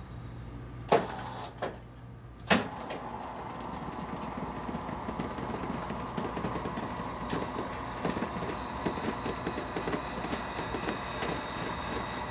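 Two sharp clicks, then the electric motor of a hospital bed running with a steady hum as it raises the head section of the bed.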